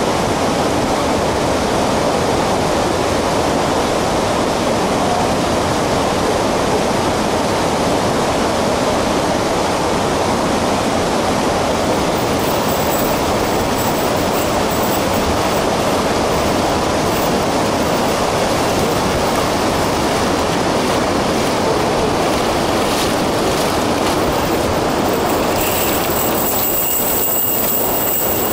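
Steady rushing of a shallow river running over stones. Thin, steady high-pitched tones join in near the end.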